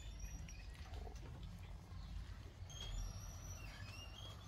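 Faint high-pitched animal chirps: a few short calls that glide up and down, over a low steady rumble.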